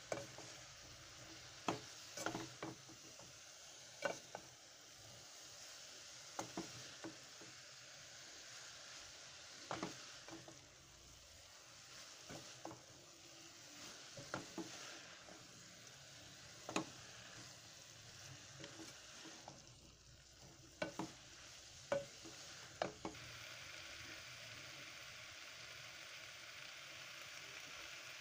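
Shredded cabbage and carrots frying in a metal pot, a faint steady sizzle, while a wooden spoon stirs them and knocks and scrapes against the pot every second or two. The knocks stop near the end, leaving only the sizzle.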